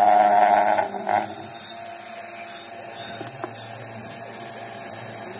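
Sieg X2 mini mill spindle turning a fly cutter across a black plastic plate: a loud, steady, high cutting whine that falls away about a second in as the cutter comes off the cut. After that the spindle motor runs on with a quieter steady hum.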